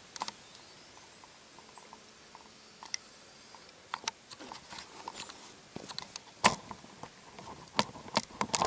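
Handling noise from a camcorder being zoomed out and picked up: scattered small clicks and knocks, sparse at first and louder and more frequent over the last two seconds.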